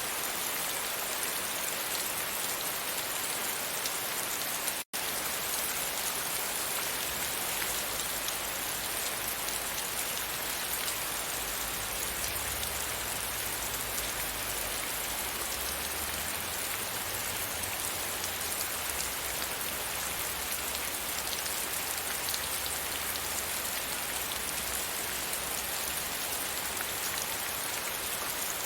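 Steady rain hitting a window, an even hiss of many drops. The sound cuts out for an instant about five seconds in, and a faint low rumble sits underneath from about six seconds on.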